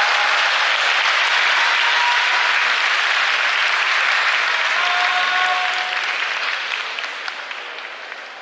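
Sumo arena crowd applauding and cheering, with a few voices calling out, dying away over the last two seconds or so.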